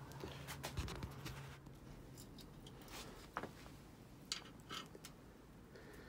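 Faint scattered clicks, taps and rustles of small screws and hand tools being handled at a bicycle's mudguard, over a low hum that stops about one and a half seconds in.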